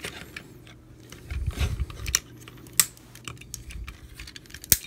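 Plastic parts of a Transformers action figure clicking and knocking as they are handled and rotated into place, with a sharp snap near the end.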